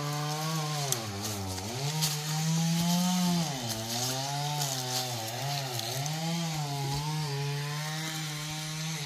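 A small engine running continuously, its pitch swinging up and down about once a second.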